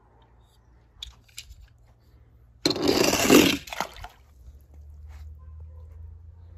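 A toy car splashing in water: one short, loud splash lasting about a second, after a couple of small clicks. A low steady hum follows.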